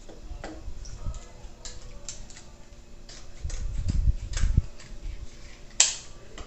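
Kitchen handling sounds as a carton of table cream is opened and emptied: scattered light clicks and knocks, a heavier low rumble from a little past the middle, and one sharp knock near the end.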